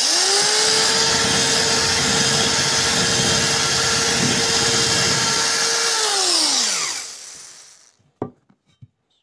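Handheld electric drill fitted with a diamond tube bit starts up and runs at a steady speed, then is switched off about six seconds in and winds down with a falling pitch. A single click follows near the end.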